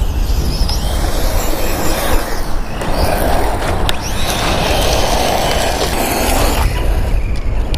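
VKAR SCTX10 V2 1/10 RC short course truck's 3300 kV brushless motor whining, rising and falling with the throttle. In the middle stretch its tyres hiss and spray over loose infield dirt as it slides.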